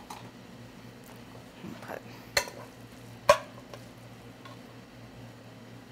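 Metal spoon and steel frying pan clinking and scraping as the pan is handled and cooked filling is scooped out of it, with two sharp clinks a little under a second apart, the second the louder.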